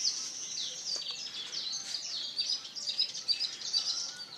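Several birds chirping: a dense run of quick, high notes that grows busier over the last second or so.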